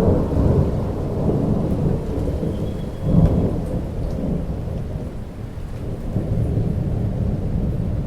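Thunder rumbling through steady rainfall, swelling sharply at the start and again about three seconds in, then rolling on.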